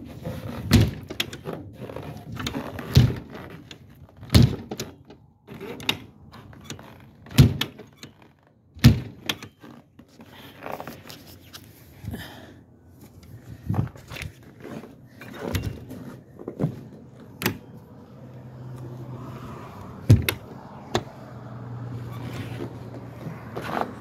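Footsteps crunching in hard, frozen snow, irregular thuds every second or two. A low steady hum comes in for a few seconds near the end.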